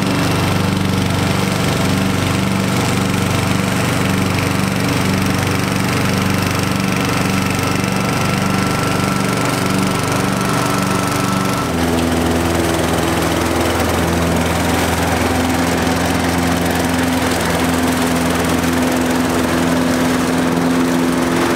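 Ride-on lawn mower's engine running while mowing tall grass, with a regular pulsing beat. About halfway through it cuts to a walk-behind lawn mower running steadily at a different pitch.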